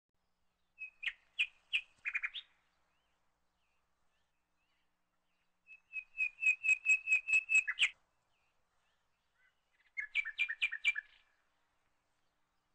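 A small bird chirping in three short bursts of quick, repeated high notes: a few notes near the start, a rapid run of about ten notes in the middle, and a last quick burst near the end.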